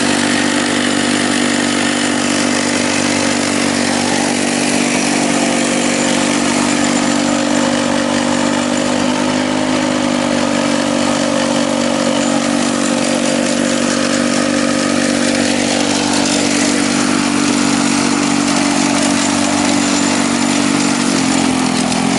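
Masport Iron Horse rotary mower's Lawn-Boy-type two-stroke engine running at a steady speed, its pitch dipping slightly near the end.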